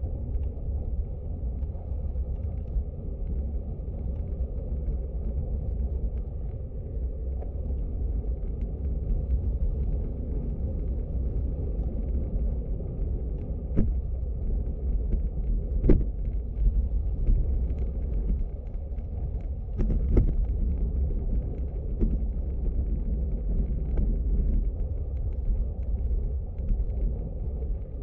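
Wind buffeting on the microphone and tyre rumble from a road bicycle riding over rough, cracked asphalt, a steady low noise. A few sharp knocks cut through it, the loudest about sixteen seconds in.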